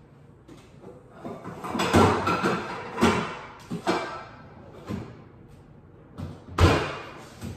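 Cookware clattering and knocking as a pan is pulled out from among other pots and pans, with one loud bang near the end.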